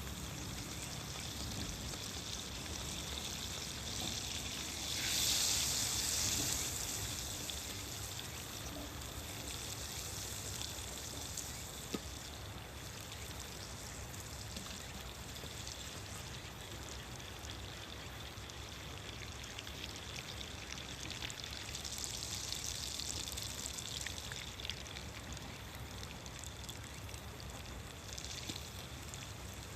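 Food sizzling in a frying pan over a wood fire: a steady hiss with fine crackles, swelling louder twice.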